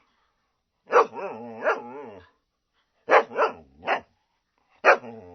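A dog barking in short groups of two or three sharp barks, with a growl running on between the barks of the first group and after the last bark.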